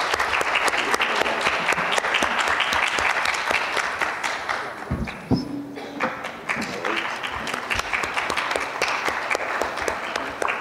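Audience applauding, thinning briefly about halfway through and picking up again.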